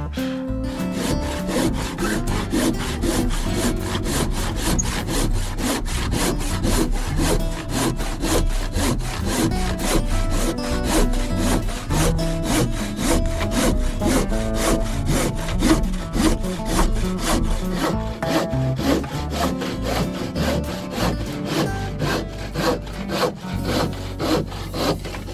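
Wood being sawn by hand in quick, even rasping strokes, with background music underneath.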